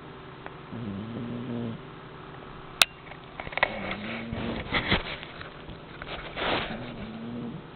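A sleeping cat snoring: a low pitched snore on its breath three times, about three seconds apart. There is a sharp click nearly three seconds in, and a few louder breathy rasps after it.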